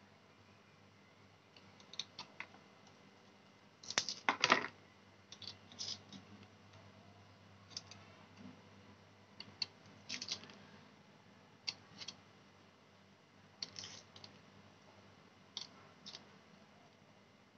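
Kitchen knife peeling a shallot: scattered short, sharp clicks and scrapes as the blade works the dry skin, with a louder burst of scraping about four seconds in.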